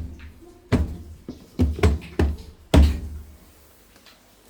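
A series of about six heavy knocks and thuds at uneven spacing, ending about three seconds in.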